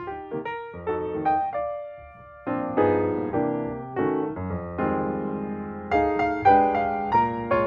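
Background music played on piano or electric piano: a gentle melody of struck notes over chords, becoming fuller about two and a half seconds in.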